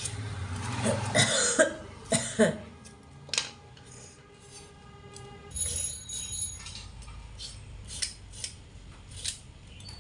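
Hand vegetable peeler scraping the skin off a potato and then a carrot in short, irregular strokes.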